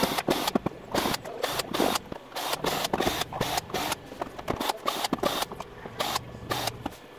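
Rapid, irregular clicks and knocks of hard objects being handled, about two or three a second, stopping just before the end.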